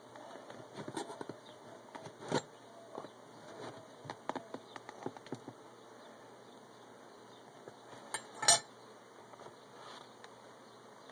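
Honeybees buzzing around an open hive, a wavering hum, mixed with scattered clicks and knocks of hive parts being handled; the loudest knock comes about eight and a half seconds in.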